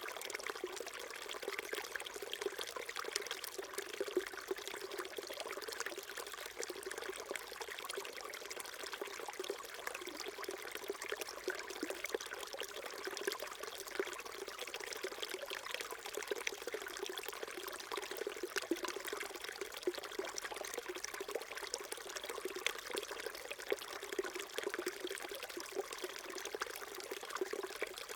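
Small stream trickling and burbling steadily over stones, a continuous babble of small splashes.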